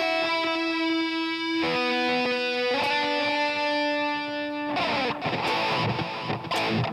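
Ibanez ARC100 set-neck electric guitar played solo: a few long, held notes that change every second or so, then, about two-thirds of the way in, a busier passage with bent notes.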